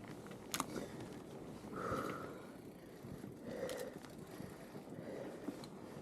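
Fat bike ridden over snow: a steady crunching hiss from the tyres with a few sharp clicks and knocks from the bike, and a couple of short puffs near the middle.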